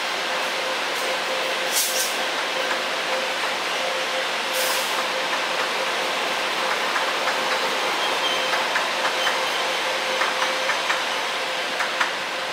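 Train running through a station, a steady rumble and hum with two short hisses in the first half and then a run of rapid wheel clicks over the rail joints, sped up by double-speed playback.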